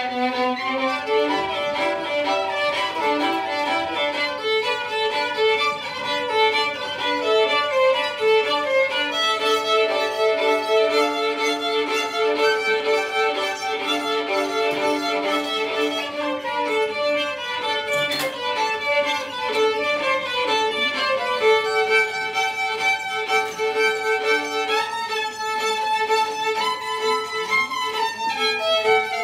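Violin playing long held bowed notes, with a few upward slides near the end.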